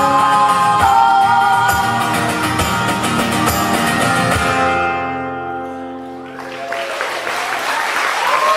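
A live song ends: sung harmonies over strummed acoustic guitar on a final held chord that fades out about five to six seconds in. Audience applause then breaks out and builds.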